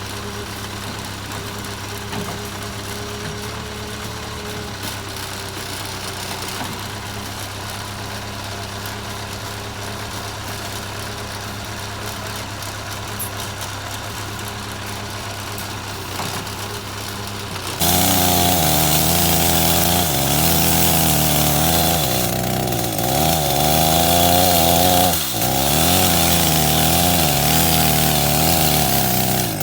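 Diesel engine of a JCB 3CX backhoe loader running steadily at idle. About two-thirds of the way through, a louder engine sound with a pitch that wavers up and down cuts in abruptly.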